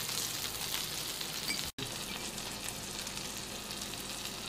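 Meat sizzling on a hot tabletop barbecue grill plate: a steady hiss with small crackling pops, broken by a momentary dropout nearly two seconds in.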